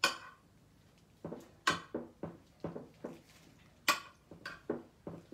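Metal spoon clinking and scraping against a ceramic baking dish while meat sauce is spread over pasta: a string of short knocks, with three sharper clinks about two seconds apart.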